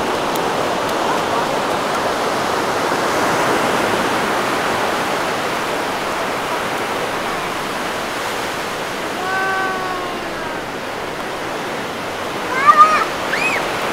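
Ocean surf washing steadily onto the beach. A short call about two-thirds of the way in, then a few loud, high-pitched squeals near the end, the loudest sound.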